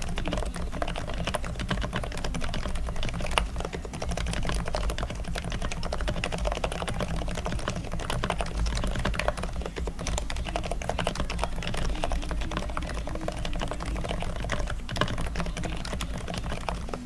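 Fast, continuous typing on an ABKO KN10BT Bluetooth electro-capacitive (Topre-style) keyboard after a full lube: the sliders have new O-rings and a 205+105 lube mix, the springs are lubed and the stabilizers are greased. A steady low hum runs underneath.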